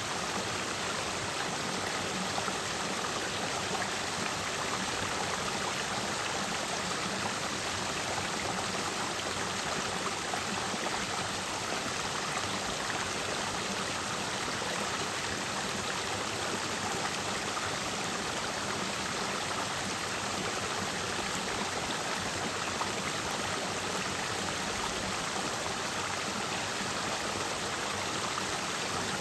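Clear mountain stream flowing and splashing over rocks, a steady even rush of water.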